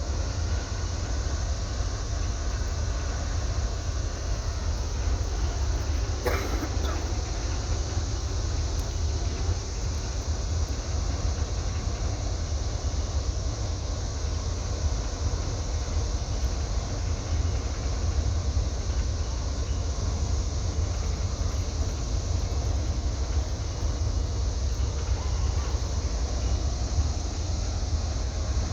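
Steady low rumble of a boat's engines, with an even haze of noise over it. A brief higher-pitched chirp rises and falls about six seconds in.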